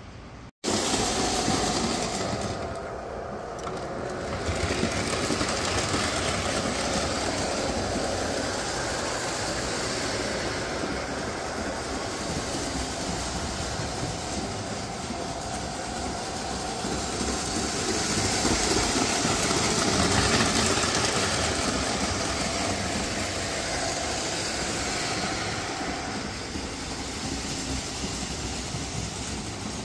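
Lionel O-gauge model trains running on three-rail tinplate track: a steady rumble of wheels and motor hum from the layout, after a brief dropout at the very start.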